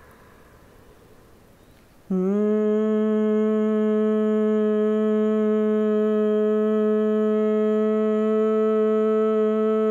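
A woman humming a steady closed-mouth "mmm" in bhramari (bee breath) pranayama. The hum starts suddenly about two seconds in and is held on one pitch.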